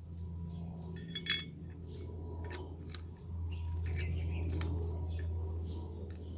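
Light metallic clicks and clinks, several separate ones, as the parts of a starter motor's solenoid and plunger are handled and fitted back together, over a steady low hum.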